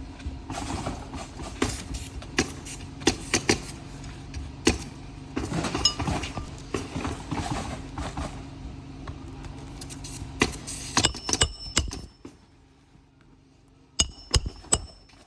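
Flat bar prying roofing nails out of asphalt shingles: repeated sharp clicks and scrapes of steel on nail heads and shingle grit over a steady low hum, which stops about three-quarters of the way through. Near the end come a few sharp metallic clinks that ring briefly.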